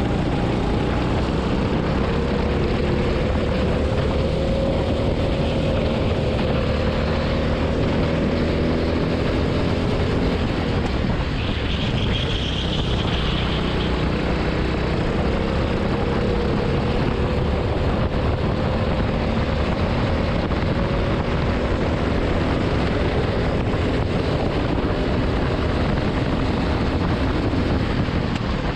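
Go-kart engine heard from on board at racing speed, its pitch rising slowly as it accelerates, dipping once about halfway and rising again, under heavy wind and road noise. A brief high whine sounds about halfway through.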